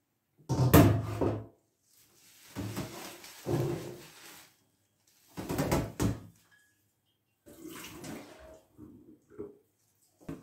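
Water splashing into a stainless-steel kitchen sink in several short bursts as a glass flower vase is emptied and handled, with a sharp knock about six seconds in.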